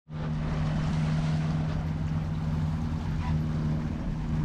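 A sailboat's auxiliary engine running at a steady speed, a constant low hum under a steady rushing of water and wind.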